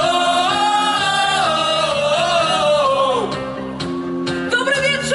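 Live pop-rock band playing loud, with electric guitars and drums under a singer holding long notes; one long note slides down about three seconds in before a new phrase begins.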